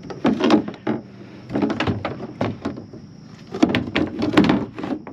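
Hollow knocks, clatters and scrapes of a paddle and dip net being handled against a plastic kayak hull, in three irregular bursts.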